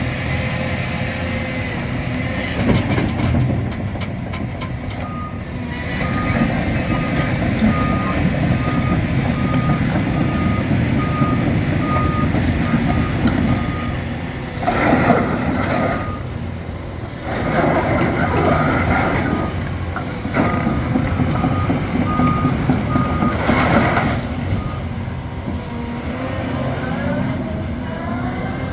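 Hyundai HX330L excavator running, its engine giving a steady rumble under a warning alarm that beeps about twice a second in two long runs. Louder surges of machine noise come three times in the second half.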